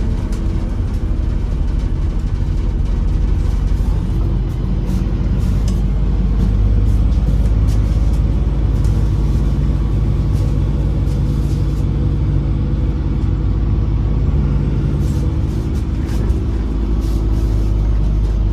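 MAZ-203 city bus's diesel engine running as the bus drives, heard from inside the passenger cabin. The engine note shifts and grows louder a few seconds in as the bus accelerates, with light rattles throughout.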